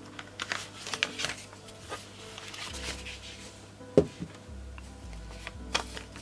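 Rustling of paper and plastic binder sleeves, with light taps, as hands handle a cash-stuffing binder and a printed savings-challenge sheet over soft background music; one sharper thump about four seconds in.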